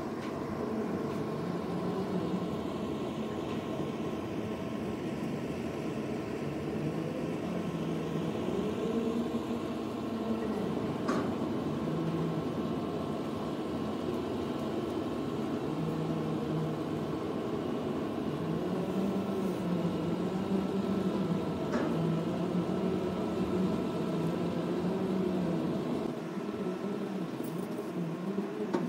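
The engines of an SLJ900/32 mobile bridge girder erecting machine running steadily, making a continuous mechanical drone whose pitch wavers up and down.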